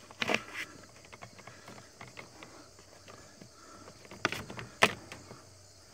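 Scattered clicks and knocks of a coaxial cable's metal F-connector being worked loose and the cable pulled down from a splitter, with small ticks of handling between them and the sharpest knocks about four and five seconds in.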